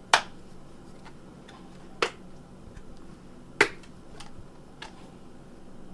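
Three sharp taps, about two seconds and then a second and a half apart, with a few fainter ticks between them.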